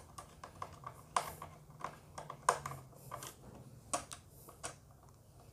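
Irregular light clicks and taps of hands handling insulated wires and fittings while connecting a blue phase wire to a rewirable fuse carrier.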